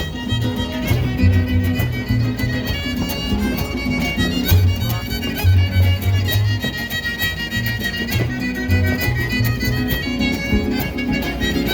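Son huasteco played by a string trio: a violin carries the melody over strummed jarana and huapanguera, with a pulsing low bass line and a steady rhythmic strum.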